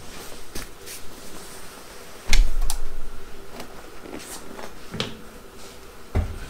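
Knocks, clicks and thumps of a vinyl-covered rear seat back being handled and fitted into a 1969 Pontiac GTO, the loudest a heavy thump a little over two seconds in, with further knocks near five and six seconds.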